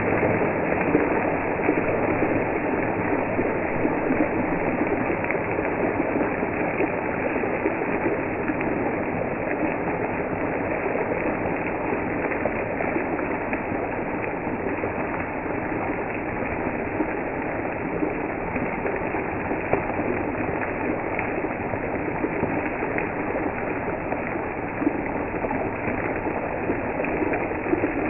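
Fish steaks shallow-frying in oil in a pan, sizzling steadily with fine crackles.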